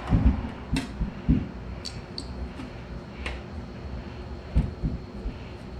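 Hands working on a motorcycle's rear license plate bracket: a few dull thumps and knocks, with light metallic clicks and clinks, two of them briefly ringing.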